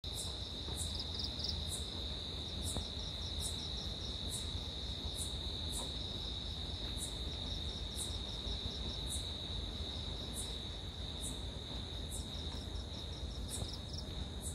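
Night insects calling: a steady high-pitched trill, with short, higher chirps from another insect repeating roughly once a second.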